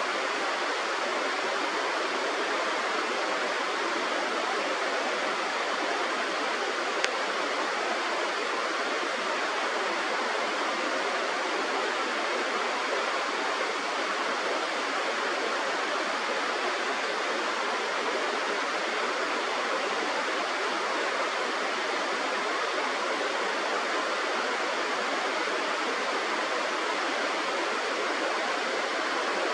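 Steady rush of running river water, even and unbroken, with one faint click about seven seconds in.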